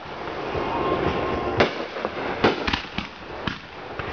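Aerial fireworks bursting close by: a string of sharp bangs, about six in the second half, over a steady hiss.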